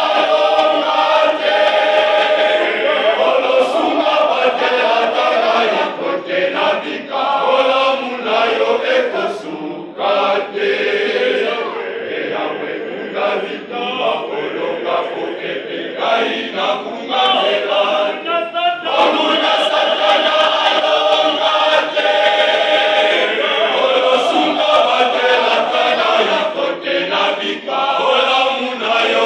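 A choir of boys' and young men's voices singing together in harmony, in phrases with short breaks between them.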